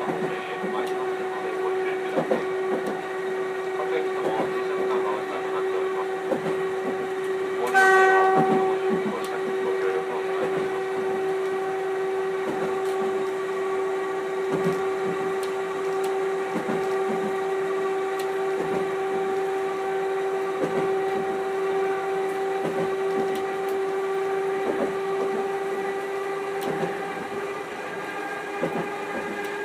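Chikuho Electric Railroad 3000-series tram running, heard from inside the car. There is a steady motor whine over the rumble and clicks of wheels on rail, and the whine rises slightly near the end. About eight seconds in, a short, loud tonal blast stands out above the running noise.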